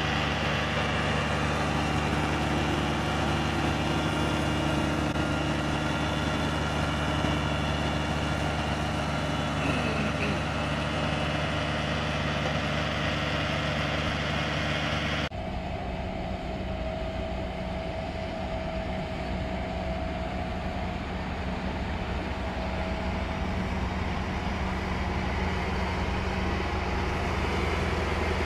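Heavy road-construction machinery engines running steadily with a low hum. About halfway through the sound cuts abruptly to a different machine's engine.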